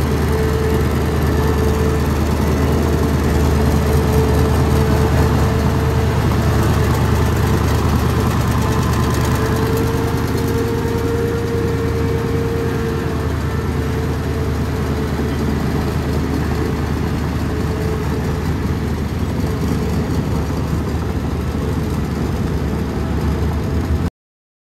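Hino F21C 21-litre V8 diesel engine of a tracked paddy-puddling tractor running steadily with a low, even drone. The sound cuts off suddenly near the end.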